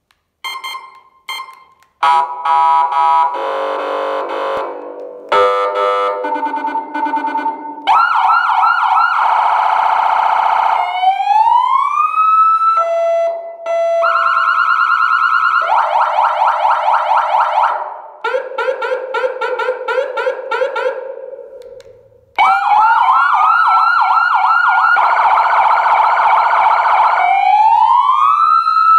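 Aosen PS-940 400 W electronic siren amplifier sounding through two horn speakers, switched through a run of different siren tones every few seconds. Two short beeps near the start give way to fast warbling and pulsing yelp patterns, with rising wail sweeps partway through and again near the end.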